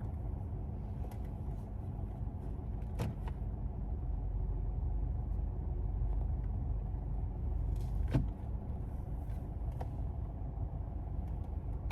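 A car running, with a steady low rumble. Two sharp clicks sound about three seconds and about eight seconds in.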